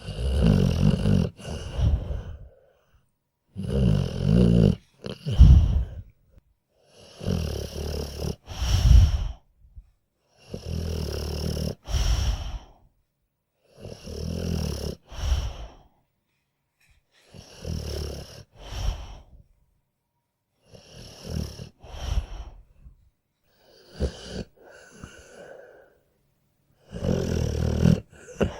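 A dog snoring in deep sleep, about nine snores at an even rhythm roughly every three seconds, with short silent pauses between breaths. Many of the snores end in a brief sharp click.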